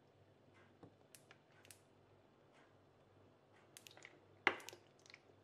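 Faint scattered clicks and ticks as cooking oil is poured from a plastic bottle into a frying pan, with one sharper click about four and a half seconds in.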